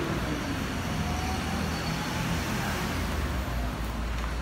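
Steady street traffic noise, with a low engine rumble from vehicles on the road.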